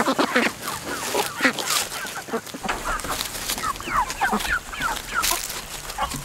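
Flock of white chickens clucking and chattering in a wire-mesh pen, many short calls overlapping with no pause.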